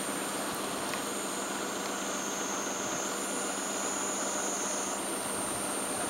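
Cicadas droning in a steady, high-pitched chorus over an even hiss of wind; a second, higher-pitched cicada joins about halfway through as the first fades.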